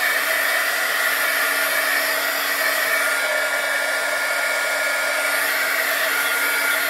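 Handheld heat gun running steadily, a constant rush of blown air with a steady motor whine.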